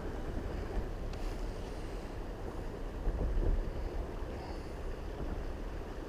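Wind buffeting an open microphone, a low rumble that swells about three seconds in, over the steady rush of river water.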